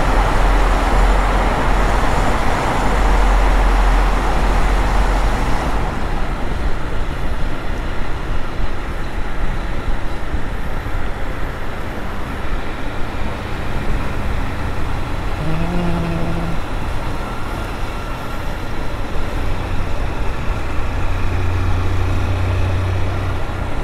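Honda CG 160 Fan motorcycle on the move, its single-cylinder engine running under heavy road and wind noise with traffic around. The noise is denser for about the first six seconds, while passing through a tunnel, then eases. The engine grows louder near the end.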